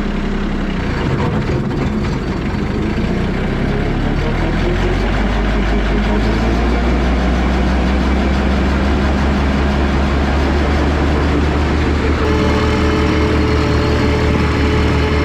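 LS MT225s compact tractor's diesel engine running with a 5-foot brush hog engaged. The sound gets louder a few seconds in as it comes up to speed, then runs steadily.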